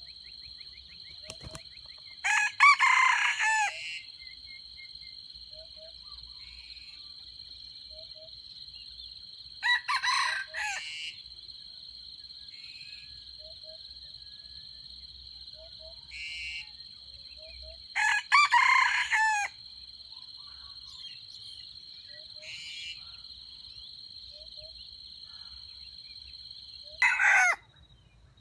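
Red junglefowl rooster crowing four times, about every eight seconds; the last crow is cut short. A steady high drone runs underneath and stops near the end.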